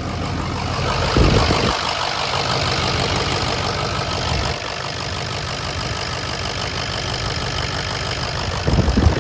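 Freshly rebuilt Ford Powerstroke diesel idling with a steady hiss of air escaping from the exhaust, which comes from the open EGT sensor port. There are two brief louder low rumbles, about a second in and near the end.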